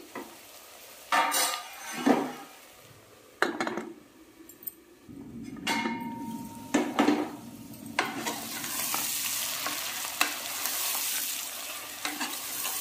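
Half-softened onions frying in oil in a pressure cooker. A spoon scrapes and knocks against the pot several times in the first seven seconds, then a steady sizzle from about eight seconds in.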